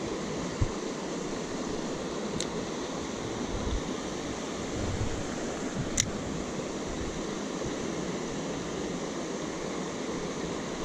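Steady rush of a creek's flowing water, the stream running a little high from rain, with a few brief sharp clicks.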